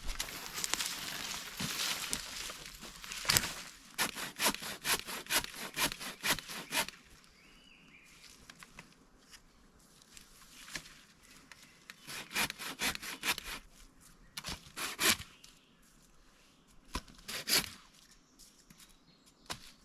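Hand saw cutting wood in runs of quick rasping strokes, about two to three a second, broken by short pauses.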